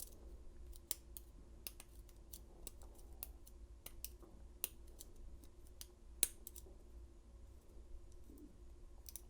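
Faint, irregular metal clicks and scrapes of a lock pick working the pins inside an old Yale padlock during single pin picking, with one sharper click about six seconds in.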